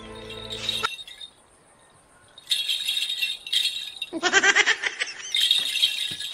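Background music stops about a second in. After a short near-silence, a hand rattle is shaken in two spells, with a short burst of fast voice-like pulses between them.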